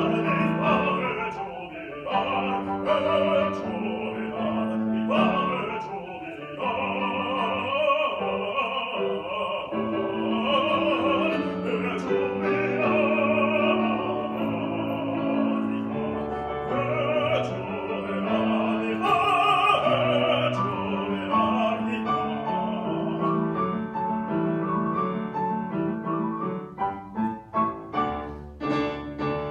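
Operatic baritone singing an aria in full voice with a wide vibrato, accompanied by a grand piano. Near the end the piano plays a series of short, detached chords.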